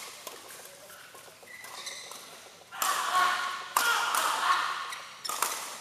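Badminton rally: rackets smack the shuttlecock several times, the hardest hits in the middle of the stretch, while shoes squeak on the court floor.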